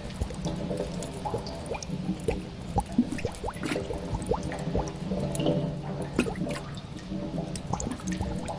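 Cave ambience: water drops plinking irregularly, several a second, each a short rising 'plip', over a low sustained eerie drone.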